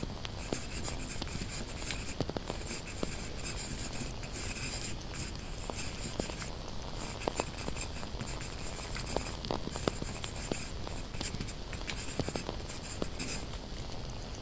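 Pen scratching across paper in short runs of writing strokes, broken by brief pauses, with scattered small pops and crackles from a burning candle.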